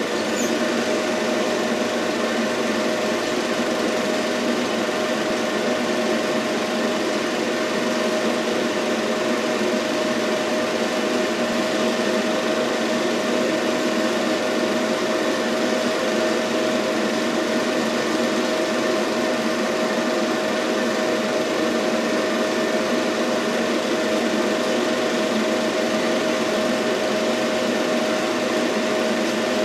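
Film projector running: a steady mechanical whir with one constant humming tone and a hiss over it.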